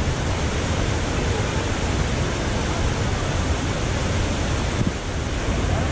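River waterfalls, a chain of falls one after another, with water rushing steadily in an even, unbroken noise that is heaviest at the low end.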